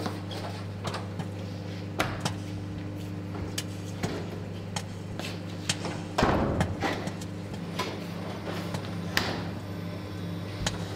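Steady low machine hum with scattered light clicks and knocks, and a louder thud about six seconds in.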